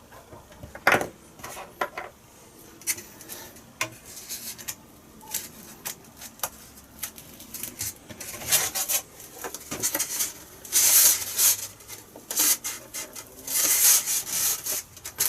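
Carbon fibre spar and foam wing being handled and worked into the glued slot: scattered light clicks and taps, then rough scraping and rubbing in stretches during the second half, loudest about two-thirds of the way in.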